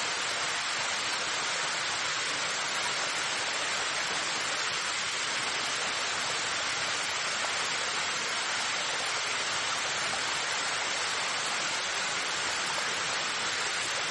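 Waterfall's falling water, a steady even rush with no change in level.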